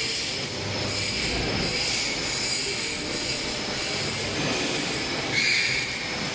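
Butyl rubber coating machine and the surrounding factory machinery running: a steady mechanical din with several high, constant whining tones over it. About five seconds in, a brief louder high-pitched sound stands out for about half a second.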